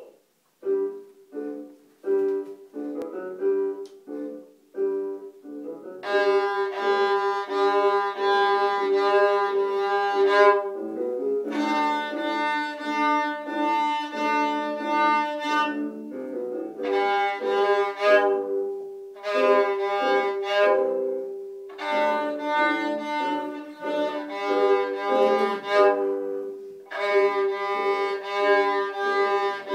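Violin played with a bow: short, separate notes for the first few seconds, then longer held notes in phrases with brief pauses between them.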